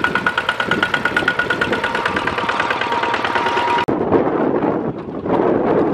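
Kubota single-cylinder diesel engine of a two-wheel walking tractor chugging steadily with a rapid even beat while driving through mud. Just under four seconds in, the sound switches abruptly to a second such tractor, duller and rougher.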